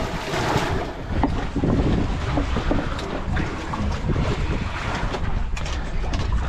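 Wind buffeting the microphone with water lapping at a small boat's hull, a steady low rumble, broken by a few sharp knocks as a caught fish is handled and unhooked aboard.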